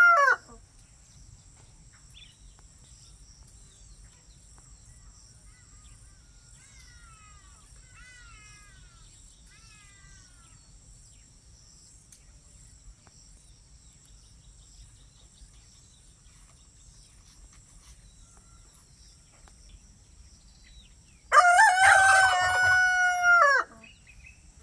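Rooster crowing once near the end, a loud crow of about two seconds; the tail of another crow fades out in the first instant. Between them a steady high insect trill runs underneath, with a few faint falling bird chirps about a third of the way in.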